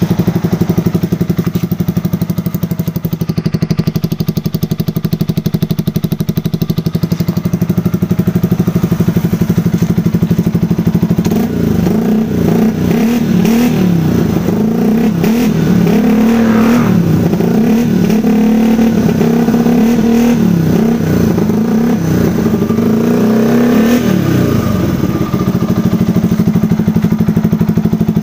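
Yamaha Vixion's single-cylinder four-stroke engine running through an SC Project slip-on exhaust fitted with a dB killer baffle. It idles steadily for about the first eleven seconds, then is revved repeatedly, pitch rising and falling, before settling back to idle near the end. The exhaust note is held down by the dB killer and is not as loud as the open muffler even when revved.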